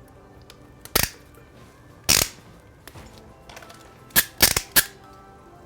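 Loud, sharp snaps of an RJ45 crimping tool closing on Cat 6 connectors: one about a second in, another about two seconds in, then a quick run of four near the end.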